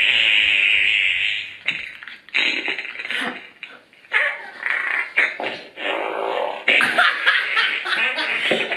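Recorded fart sound effects played from a fart soundboard: one long one lasting about a second and a half at the start, then a string of shorter ones, with voices near the end.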